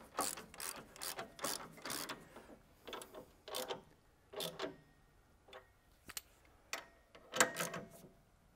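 Hand ratchet wrench clicking in short bursts as it snugs up shear bar bolts, about two strokes a second at first, then more spread out, with a louder run of clicks near the end.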